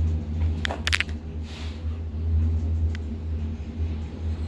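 Steady low rumble inside a moving Disney Skyliner gondola cabin, with a few sharp clicks a little under a second in and another near three seconds.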